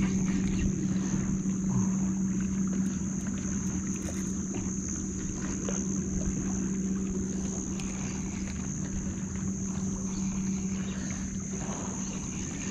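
A steady low hum with a steady high insect drone above it, over wind rumbling on the microphone.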